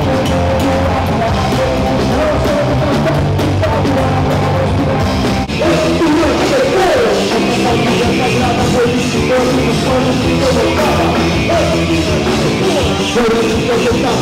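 A rock band playing loud, with drums and electric bass and a voice singing. About five and a half seconds in the music drops out for a moment and picks up again in a different passage.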